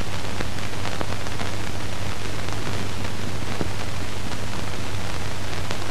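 Steady hiss of an old film soundtrack, with a low steady hum under it and a few faint clicks.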